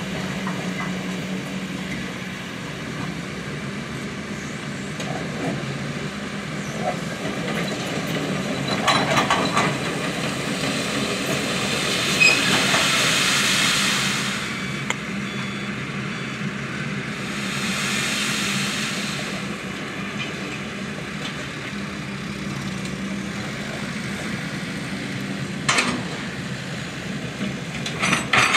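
Diesel engines of a dump truck and an excavator running steadily at a distance, with a constant low hum, over the rush of a shallow river. Around the middle a louder rushing noise swells for a few seconds as the dump truck tips its load of gravel, with a weaker one a few seconds later. There are a few sharp knocks, one about a third of the way in and two near the end.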